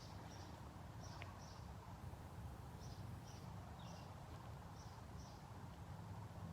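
A small bird chirping repeatedly, short high notes mostly in pairs, over a faint steady low rumble.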